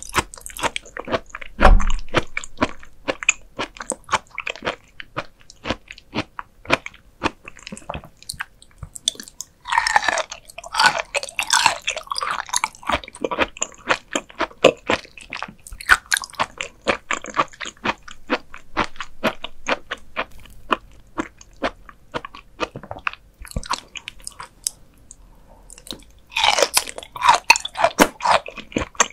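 Close-miked chewing of raw beef liver: rapid crisp clicks and wet crunching, with a low thump about two seconds in. Denser bursts of crunching come about ten seconds in and again near the end.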